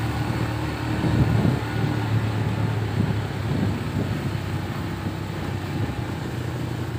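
A motor vehicle's engine running steadily while travelling along a rough forest road, with road and wind noise mixed in.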